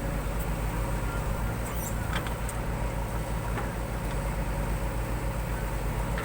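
Diesel engine of a JCB 3DX backhoe loader running steadily with an even low throb, with a few faint high clicks and squeaks about two seconds in.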